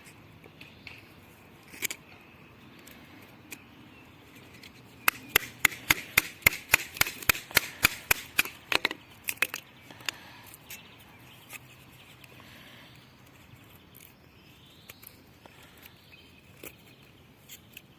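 Wooden knocks from batoning: a stick strikes the spine of a folding knife's blade to drive it through a piece of wood along the grain. After a few scattered taps there is a quick run of about four sharp knocks a second for roughly four seconds, then a few lighter taps.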